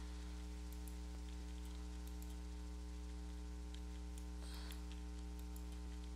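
Steady low electrical mains hum, with a few faint mouse clicks.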